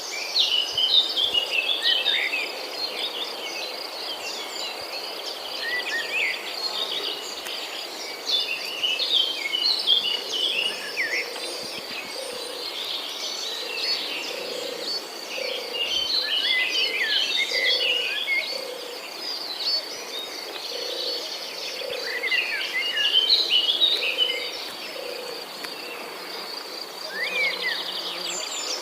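Many birds chirping and twittering in quick, varied calls over a steady high insect trill, with a low note repeating about once a second through much of the time.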